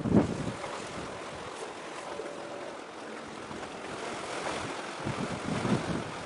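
Wind buffeting the microphone in gusts, a little after the start and again about five to six seconds in, over a steady rushing noise of wind and sea.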